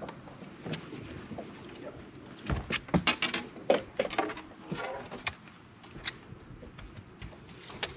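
A quick run of sharp clicks and knocks, most of them between about two and a half and five and a half seconds in, over a faint steady background.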